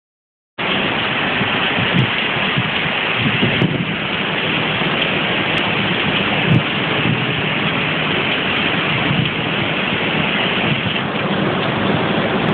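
Heavy storm rain pouring down, a dense, steady hiss that starts about half a second in.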